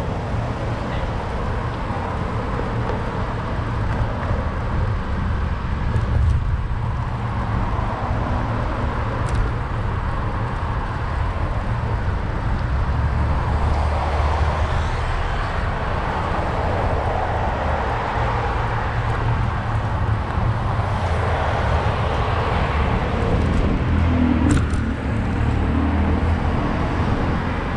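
City street traffic: cars passing on a busy avenue, swelling up about halfway through and again near the end, over a steady low rumble heard from a moving bicycle.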